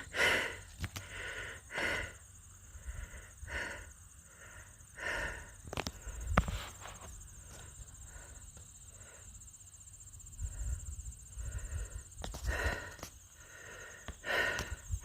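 A hiker's heavy breathing, out of breath from climbing a steep trail, with a loud breath roughly every second and a half.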